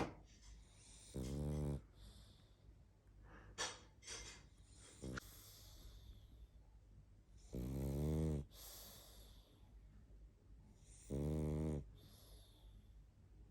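Pug snoring in its sleep: three buzzing snores several seconds apart, the middle one the longest, with soft hissing breaths and a few short snuffles between them. This is the noisy breathing typical of the breed's flat-faced airway.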